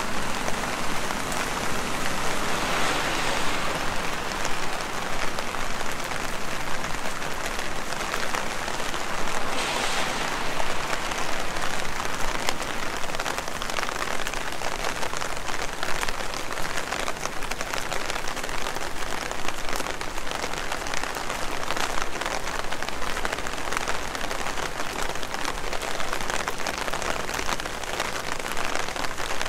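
Heavy rain falling steadily, a dense hiss made of countless fine drop impacts. Two short swells in the hiss come about three and ten seconds in.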